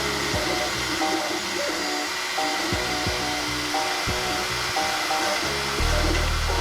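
Background music: short melodic notes and a bass line over a steady, even hiss, the bass thickening into a held low tone near the end.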